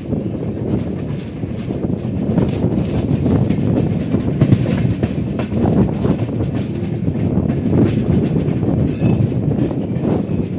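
Express train's passenger coaches rolling along the track, heard from an open coach doorway: a steady rumble of wheels on rail with a run of clicks and clatter as the wheels cross rail joints and points.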